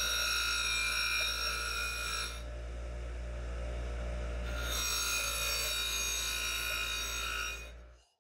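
Bench grinder running with a wire wheel, a rusty metal lantern end cap held against it to strip the rust: a steady motor hum under a high, ringing scrape. About two and a half seconds in the scrape falls away while the wheel spins free, comes back about two seconds later, and the sound cuts off near the end.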